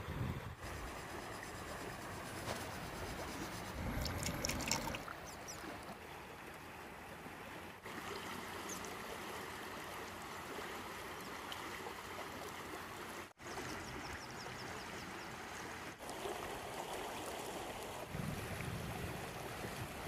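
Steady rushing of flowing water, cut off briefly about thirteen seconds in.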